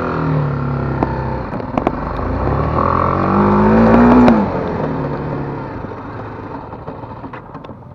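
BMW G 310 GS single-cylinder engine pulling hard in first gear at full throttle, its pitch rising, then dropping away abruptly a little over four seconds in as the throttle closes for a stop on the rear brake alone. The engine sound fades after that.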